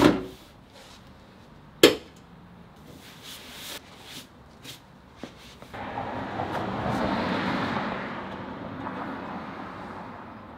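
Two sharp knocks of measuring tools against the car body, then a vehicle passing, its rush swelling about six seconds in and slowly fading.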